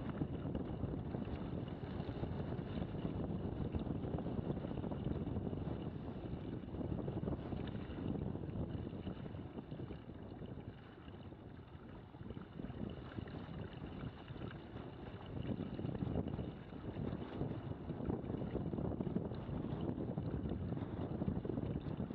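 Hobie trimaran under sail: water rushing and splashing along the hulls, with wind buffeting the microphone. A steady rush that eases a little about halfway through.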